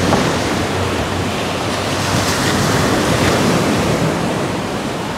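Sea surf: a steady rush of waves washing on the shore, with some wind on the microphone and a faint low hum underneath.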